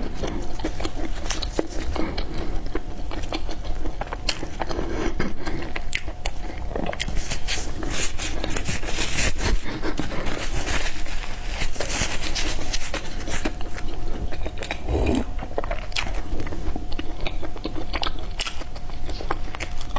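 Close-miked chewing and biting of peanut and black sesame bread, with dense, irregular clicks and crackles of mouth noise.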